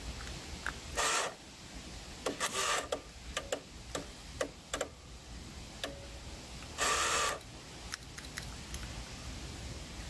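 Light plastic clicks and three short scraping rustles as a power mirror switch and its wiring connector are handled, with a terminal being bent by hand to make better contact.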